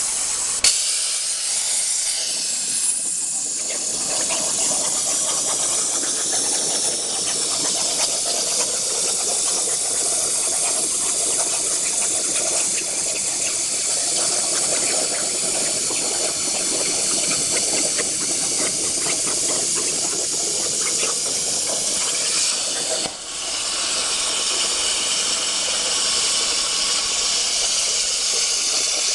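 CNC plasma torch cutting 3/4-inch steel plate over a water table: a loud, steady high-pitched hiss of the plasma arc. A sharp crack sounds just under a second in, and the hiss drops out briefly about three quarters of the way through before going on.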